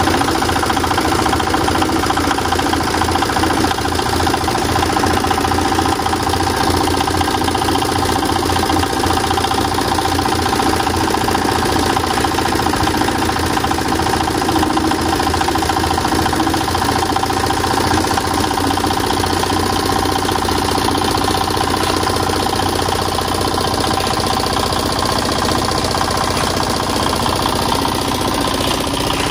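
The water-cooled diesel engine of a concrete mixer running steadily at a constant speed.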